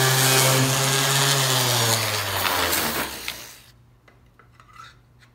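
DeWalt random orbit sander running against the wooden axe handle's end, taking wood off so the axe head will seat. About two seconds in it is switched off, and its hum falls in pitch as it winds down to a stop. A few faint handling clicks follow.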